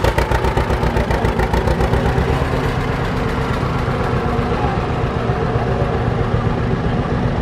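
A John Deere two-cylinder tractor engine running at low speed as the tractor drives past, with an even, rapid putt-putt of exhaust beats. The beats become less distinct after about three seconds as the tractor pulls away.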